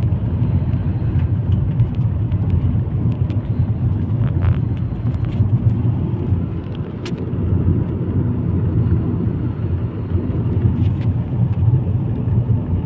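Steady low rumble of a car driving along a road, heard from inside the cabin: engine and tyre noise.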